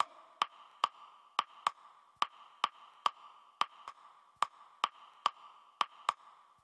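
Sparse background music cue: sharp ticks, two or three a second in an uneven pattern, over a faint steady tone.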